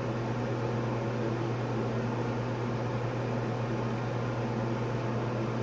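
Ventilation fan running with a steady low hum and an even airy noise.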